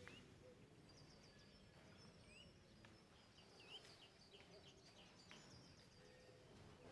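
Near silence: faint room tone with a few faint, high, short chirps scattered through it.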